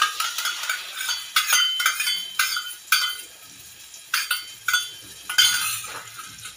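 Steel cup clinking again and again against a steel saucepan as eggs are poured and knocked out of it into the hot masala. The short ringing clinks come in quick succession, pause briefly about midway, then start again.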